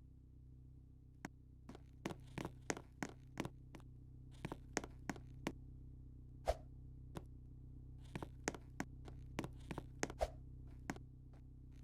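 Irregular light taps and clicks, about two dozen, including two louder thumps, over a steady low hum.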